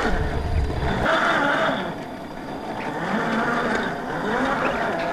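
Scale RC crawler's brushed electric motor and gearbox whining, the pitch rising and falling over and over as the throttle is worked. A low rumble drops out about a second in.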